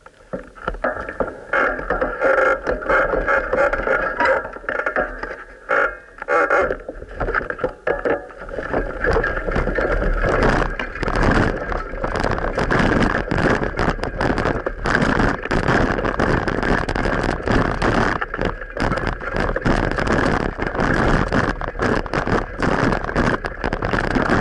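Riding noise from a bicycle ride: a steady rumble and rush of wind, with dense, rapid rattling from about ten seconds in.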